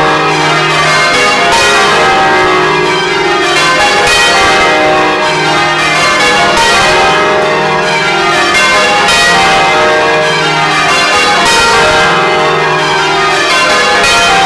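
A ring of twelve full-circle church bells in change ringing, heard close up from inside the belfry: the bells strike one after another in quick succession, their notes overlapping in a continuous loud peal. The 10th, 11th and tenor bells have wooden-shafted clappers.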